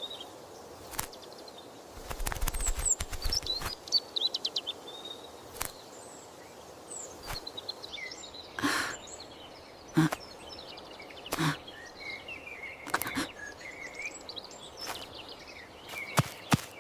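Forest ambience sound effect: scattered birds chirping and tweeting over a faint steady background, with a quick run of clicks two to four seconds in and several soft thumps later on.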